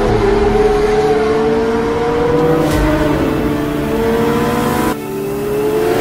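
McLaren twin-turbo V8 hybrid hypercar accelerating hard, its engine note climbing steadily through the revs. Just before five seconds in, the pitch drops at an upshift, and then it climbs again.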